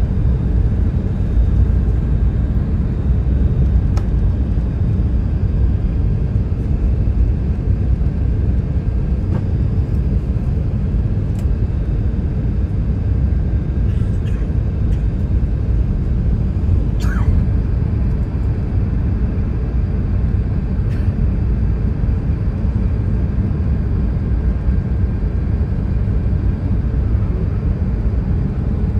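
Steady low cabin rumble of an Airbus A380 descending on approach, engine and airflow noise heard inside the cabin beside the wing. A few faint clicks and a brief squeak sit over it.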